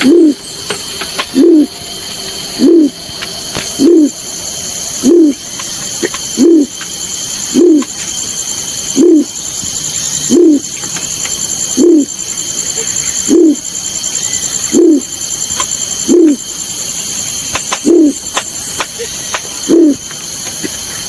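The hooting call of the bird known as balorinay, played as a hunting lure call. One short, low note rises and falls, and it repeats evenly about every second and a quarter, about fifteen times. A steady high-pitched buzz runs behind it.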